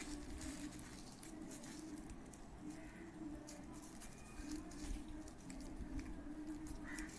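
Faint rustling and small scratchy handling noises of tissue paper being rolled and twisted around a cotton-tipped wire, with a low hum that comes and goes.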